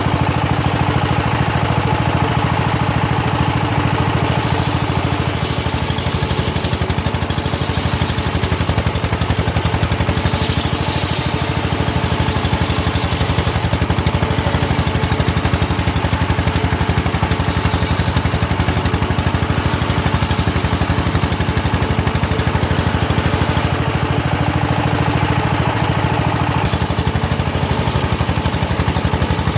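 Homemade circular saw machine running steadily, with several stretches of a higher hiss where the blade rips through hard teak.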